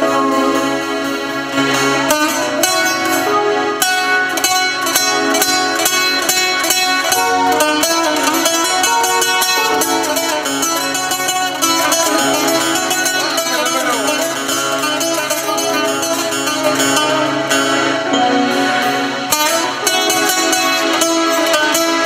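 Instrumental interlude of Kurdish folk music: a bağlama (saz) picked in quick, even strokes over keyboard accompaniment, with no singing.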